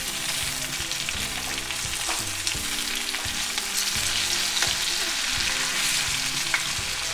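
Marinated chicken drumsticks sizzling steadily in hot oil in a frying pan. The pieces are being turned over, with a few light knocks against the pan.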